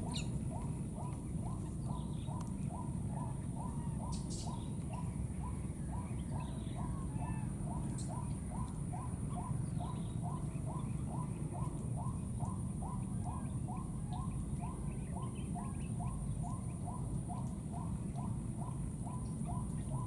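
An animal call of short notes, repeated steadily about two to three times a second, over a constant high-pitched whine and a low rumble of outdoor ambience.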